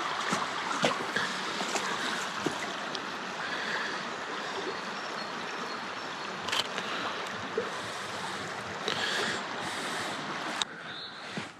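Steady rush of flowing water, with scattered light clicks over it. The rush drops away suddenly near the end.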